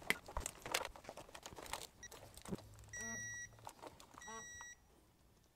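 Light clicks and taps of a socket and extension turning a spark plug in. Then two short electronic beeps, about a second apart, from a digital torque wrench signalling that the plug has reached its set torque of 13 foot-pounds.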